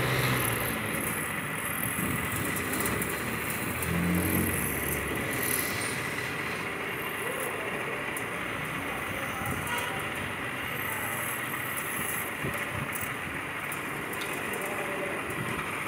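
Wood lathe running while a hand-held turning tool cuts a spinning wooden spindle: a steady noise with a faint steady high whine.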